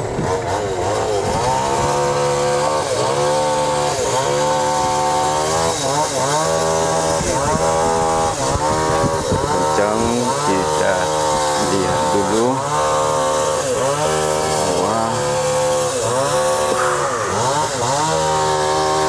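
Yamaha outboard motor running on a small boat, its pitch dipping and rising again about once a second as the boat holds position in choppy water.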